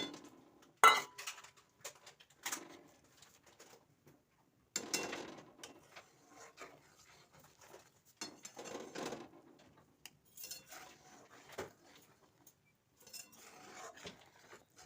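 A spoon clinking and scraping against a cooking pot in scattered short bouts, stirring vermicelli into simmering milk.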